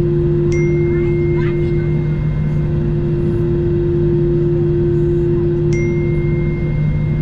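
Steady low drone inside an Airbus A320 cabin on the ground, with two even hum tones. A faint high tone comes in with a click about half a second in and again near the end.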